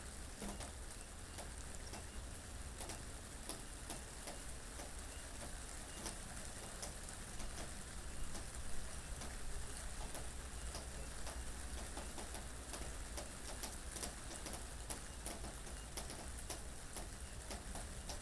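Steady rain falling, a soft hiss dotted with many small drop ticks, over a low steady rumble of wind.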